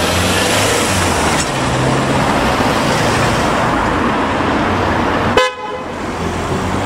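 Steady road traffic passing close by, with a brief car horn toot about five and a half seconds in.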